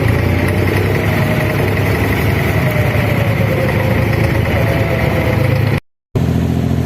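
An abra's diesel engine running with a steady low drone. The sound cuts out completely for a moment about six seconds in, then the engine drone resumes.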